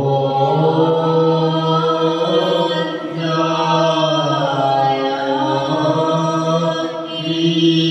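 Devotional chanting: a voice singing long held notes, in a few phrases with short breaks between them.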